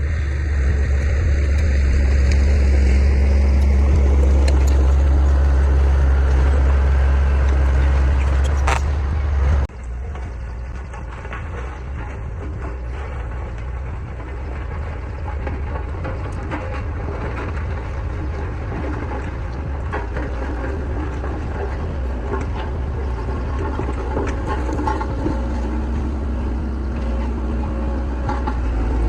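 Heavy construction machinery at work: diesel engine running with a strong steady low drone that cuts off abruptly about ten seconds in. After that, quieter engine noise continues with scattered knocks.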